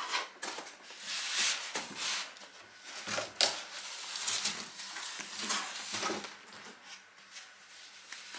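Cardboard carton sliding and scraping against the inside of a larger cardboard box as it is pulled out by hand: a run of irregular scrapes and rustles that thins out near the end.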